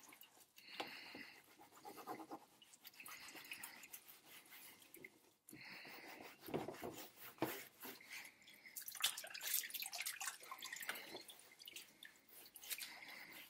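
Wet cloth rubbing and scrubbing over a plastic plotter case, with water dripping. Repeated scrubbing strokes, busier and louder in the second half.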